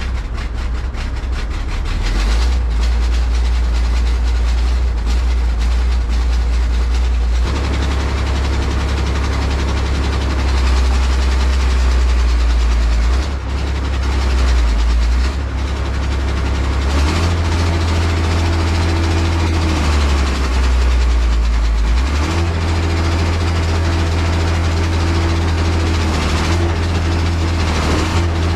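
The diesel engine of a Case 170B excavator running, its low drone stepping up and down in pitch and load every few seconds. Over the second half a higher steady whine comes in and drops out several times.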